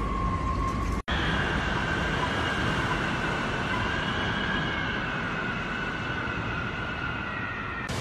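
Storm wind whistling: a steady high tone over a continuous rush of wind noise. About a second in it cuts off abruptly and gives way to another, higher whistle that slowly sinks in pitch.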